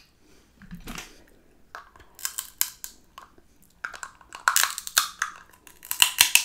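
Cooked shrimp being peeled by hand, the shell crackling in short bursts, then bitten and chewed close to the microphone.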